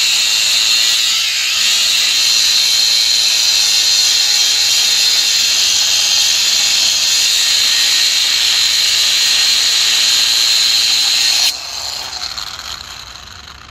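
Cordless angle grinder cutting into a steel rail: a loud, steady grinding hiss, with the motor's pitch dipping briefly under load about a second in. Near the end the cutting stops suddenly and the grinder winds down.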